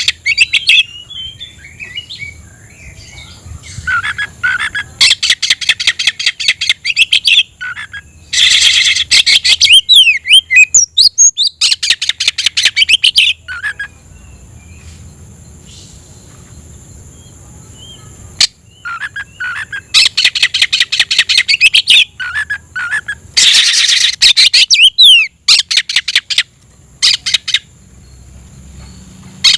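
Oriental magpie-robin (kacer) singing loudly in its rival-challenging song: bursts of rapid, repeated chattering notes mixed with sweeping whistles, broken by short pauses.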